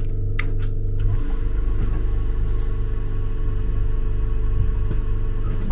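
Steady machine hum with a constant low tone inside a railway carriage. A few faint clicks come in the first second, and one more near the end.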